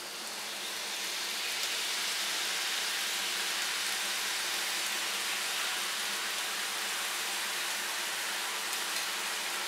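Besan sev dough strands frying in hot oil in a steel kadhai, a steady sizzle that swells over the first second or so as more strands land in the oil. The oil is properly hot for frying sev.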